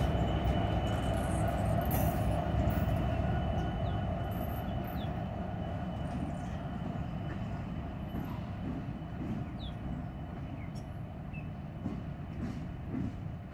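Freight train passing and moving away, a Norfolk Southern diesel locomotive at the rear following covered hopper cars: steady rumble of the engine and the wheels on the rails, with a faint steady ringing tone above it. The sound fades gradually as the locomotive draws away.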